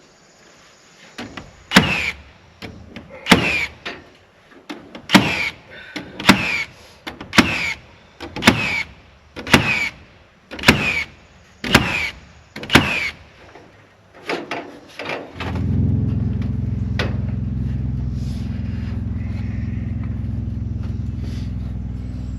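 Repeated sharp, ringing knocks about once a second, typical of fastening barn siding. About two-thirds of the way in, a steady low motor hum starts and keeps going.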